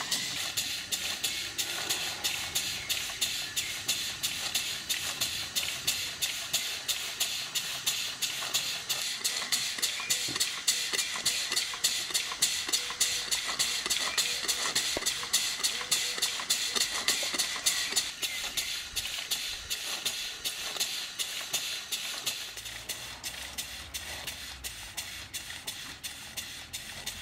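Brunell Models grasshopper model beam engine running under steam: a steady rhythm of quick exhaust beats over a continuous hiss of steam.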